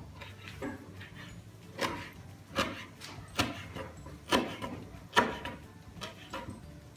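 Kitchen knife chopping blanched wild fennel on a wooden cutting board: sharp knocks of the blade striking the wood, about one a second at uneven spacing.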